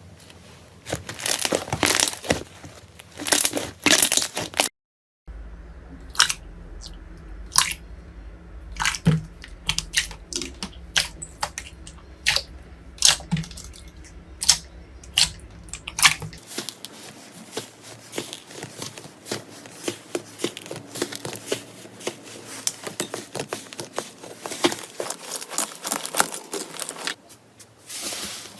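Slime being squeezed, poked and stretched by hand, giving a run of crisp crackles and pops, which come thicker later on. There is a short silent gap about five seconds in.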